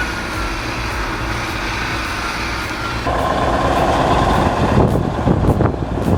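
Heavy diesel machinery running steadily. About three seconds in, it changes abruptly to a louder, harsher engine sound with some clanking.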